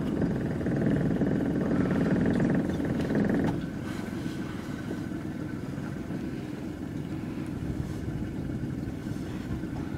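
Small fishing boat's engine running, louder for the first three and a half seconds, then dropping to a quieter, steady run.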